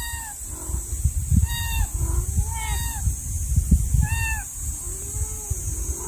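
A young kitten mewing: four short, high-pitched cries, each falling slightly at the end, spaced a second or so apart. Lower, longer calls come in between, over a steady low rumble.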